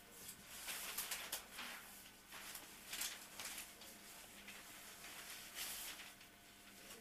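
Newspaper pages rustling as they are handled, in several irregular bursts over a faint steady hum.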